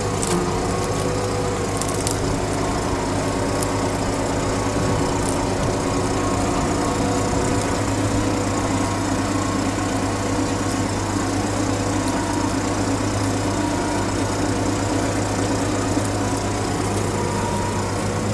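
Tractor engine running steadily under load while pulling a mounted mouldboard plough through the soil, a constant low hum with little change in pitch.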